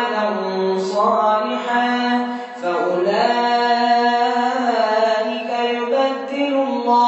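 A man's voice reciting the Quran in melodic tajweed chant, leading prayer, drawing out long held notes with one brief break about two and a half seconds in.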